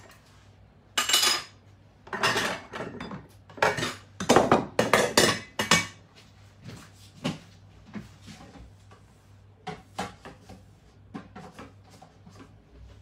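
Pots and metal cooking utensils clanking and scraping in several clusters, busiest a few seconds in, then a few scattered knocks.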